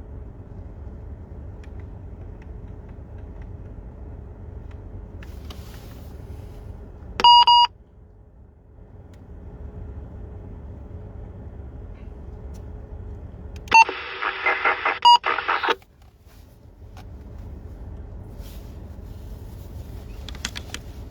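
Two-way radio beeps on a quiet PMR446 channel: a short beep about seven seconds in, then about fourteen seconds in a burst of receiver noise lasting just over a second, opened and closed by beeps. A steady low rumble runs underneath.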